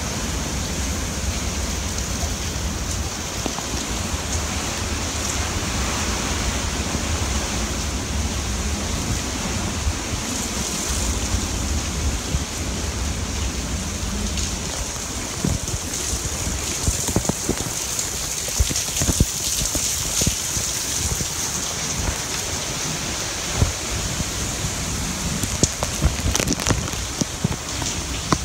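Hurricane rain pouring steadily onto pavement and cars as a constant hiss. Wind rumbles on the microphone for about the first half, then eases. Scattered sharp taps of drips and splashes come in the second half.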